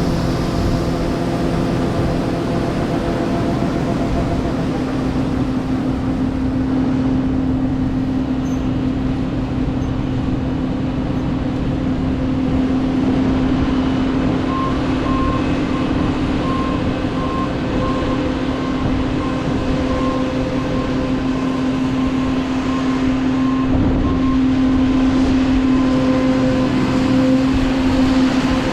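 Combine harvester running steadily with a constant, even drone. About halfway through, a series of short, evenly spaced electronic beeps sounds for some ten seconds.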